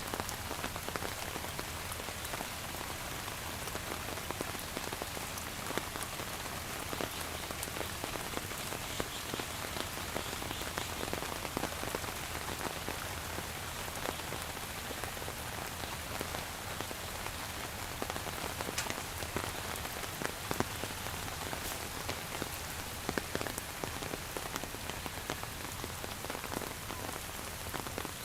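Steady rain falling on a surface, a continuous hiss dotted with many fine drip and patter ticks.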